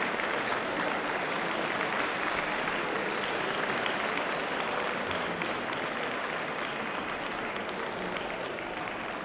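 Audience applauding steadily, the applause slowly fading away.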